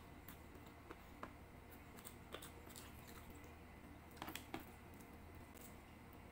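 Faint eating sounds: a person chewing a mouthful of rice and chicken, with scattered soft clicks and smacks and fingers pressing rice together on a tray. A cluster of sharper clicks comes about four seconds in.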